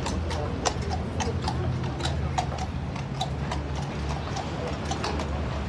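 Shod horses' hooves clip-clopping on cobblestones as the horses walk, about two to three hoof strikes a second, over a steady low rumble.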